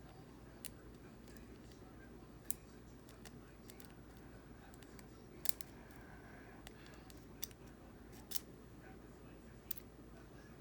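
Faint, scattered metallic clicks of a lock pick and tension wrench working the pin tumblers of an aluminum padlock as the pins are probed and set, about eight clicks spaced irregularly, over a low steady hum.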